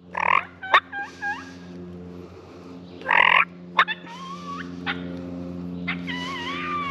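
Wild turkey gobbling twice, each gobble loud and brief, about three seconds apart, with small songbirds whistling short phrases between them over a steady low hum.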